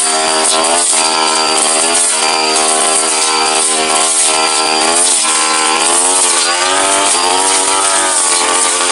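Tasto TK 328G brush cutter's two-stroke engine running at high revs. Its pitch sags and recovers a few times, around the middle and near the end, as the blade loads up in thick brush.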